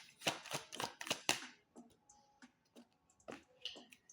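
Tarot cards being shuffled: a quick run of sharp card snaps and clicks over the first second and a half, then scattered lighter taps.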